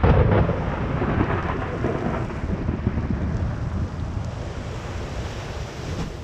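A loud thunderclap breaks at the start and rumbles on, slowly fading over several seconds, over heavy rain.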